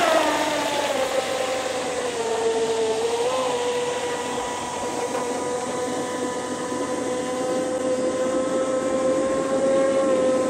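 Radio-controlled speedboat's motor running at speed with a high whine, over the hiss of its hull on the water. The pitch drops over the first two seconds or so, holds steady, then rises slightly near the end.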